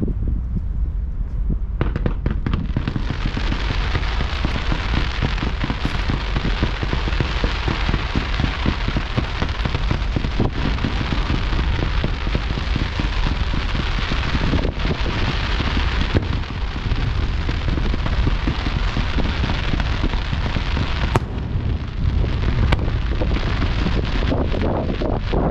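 Fireworks finale barrage: a dense, continuous crackling of crackle stars builds about two seconds in and runs until near the end, over a low rumble, with sharp shell bursts now and then.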